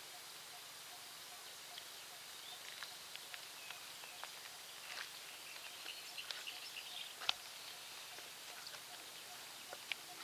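Faint birds chirping in short, scattered high calls over a steady hiss, with one sharp click about seven seconds in.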